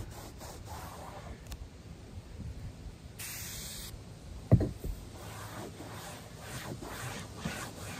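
A short hiss from an aerosol can of Sprayway glass cleaner about three seconds in, lasting under a second, followed by a loud knock as the can is set down on the RV roof. Before and after it, a rag rubs on the roof.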